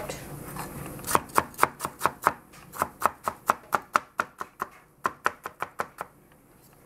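Cleaver chopping cucumber slices into thin strips on a plastic cutting board: a quick, even run of knocks, about four a second, starting about a second in, with a short break about five seconds in, and stopping shortly before the end.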